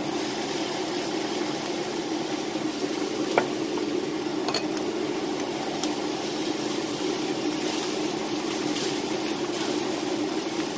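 Cubed beef and diced tomatoes sizzling in a hot skillet as a spatula stirs them, over a steady low hum, with a couple of sharp clicks of the spatula against the pan a few seconds in.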